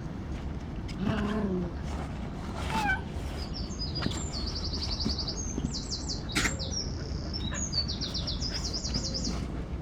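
A small songbird sings a run of fast, high trills and twittering phrases through the second half. Before it, about a second in, comes a short falling whine.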